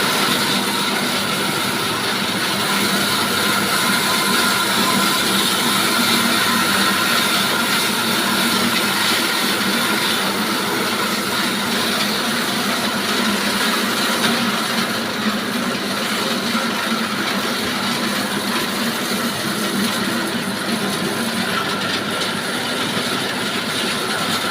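Sawmill running steadily and loudly as it saws timber, a dense mechanical noise with a constant hum.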